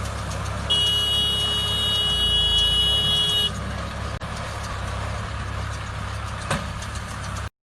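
A heavy engine running steadily with a low rumble. A steady high-pitched tone sounds over it for about three seconds, starting just under a second in. The sound cuts off abruptly near the end.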